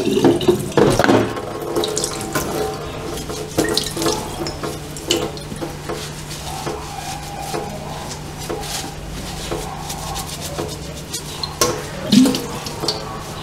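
Tap water running into a stainless-steel sink while a glass vase is rinsed and wiped with a cloth, with scattered clinks and knocks of glass against the steel. A steady low hum runs underneath.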